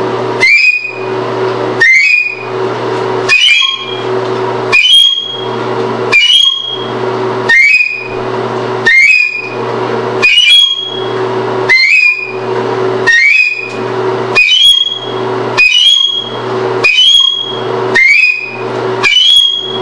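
Flute playing a short, high note over and over, about every second and a half, each note sliding up in pitch at its start. A steady low hum sits underneath and drops out briefly just before each note.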